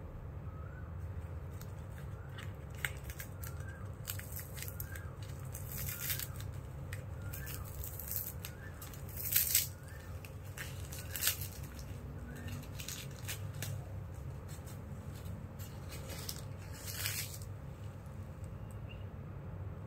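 Paper wrapper being unwrapped and torn off a small puer tea ball: scattered rustling and crinkling, loudest about halfway through, over a steady low hum.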